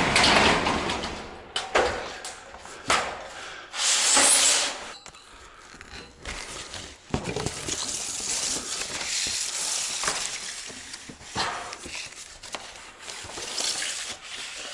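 A long metal standing-seam roofing panel sliding along a wooden track, giving scraping, hissing rushes with a few sharp knocks and rattles. The loudest rush comes about four seconds in, followed by a softer, steadier scraping.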